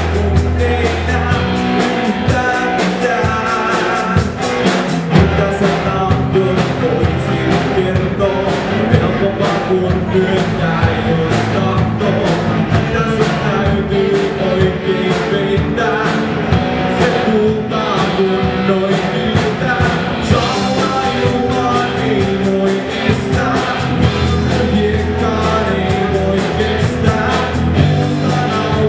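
A rock band playing live, with loud electric guitars, drum kit and a sung vocal line.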